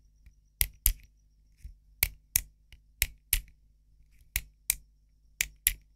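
Retractable-nib click mechanism of a Pilot Capless White Kasuri fountain pen being worked close to the microphone: five sharp double clicks, roughly one a second, the two clicks of each pair about a third of a second apart.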